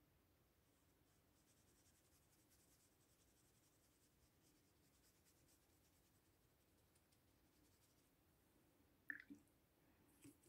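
Near silence with the faint scratch of a watercolour brush stroking on paper, then two short clicks near the end.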